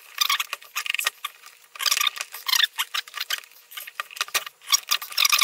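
White cardboard retail box being handled and pried open by fingers: scratchy rustling and small clicks in repeated bursts.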